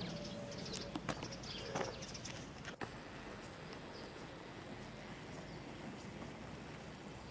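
Faint outdoor yard ambience, with a few short high chirps during the first two seconds and one sharp click a little before the middle.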